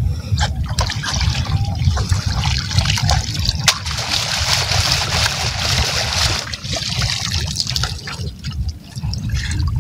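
Water splashing and trickling out through the slats of a woven bamboo box fish trap as it is lifted out of the river shallows. The splashing is heaviest from about two seconds in to past six seconds, then thins out. A steady low rumble runs underneath.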